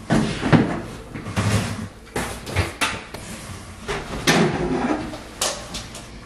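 Close handling noise: cloth brushing and rubbing on the microphone, with a string of irregular sharp knocks and clicks.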